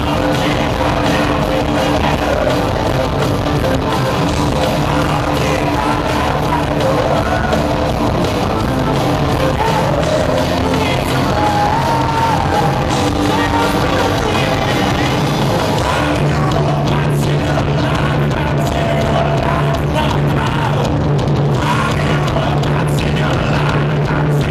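Hard rock band playing live at full volume, with electric guitars and drums, heard from within the audience. About two-thirds of the way through, a held low note comes to the fore.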